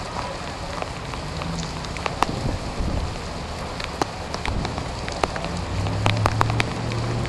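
Tropical storm rain coming down steadily, with drops striking close by as scattered sharp ticks that grow more frequent in the second half. A low steady hum joins about five and a half seconds in.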